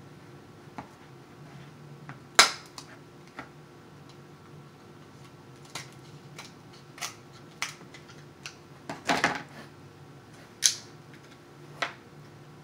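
King crab leg shells cracking and snapping as they are broken open: a string of sharp cracks with small clicks between them. The loudest crack comes about two and a half seconds in, and a quick cluster of cracks comes a little past the middle.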